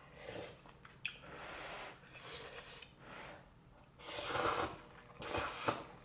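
Black bean noodles being slurped in a run of about five hissing sucks, the two loudest in the last two seconds.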